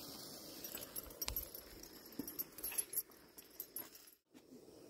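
Faint, scattered small clicks and light clinks over a quiet background, broken by a brief dropout about four seconds in.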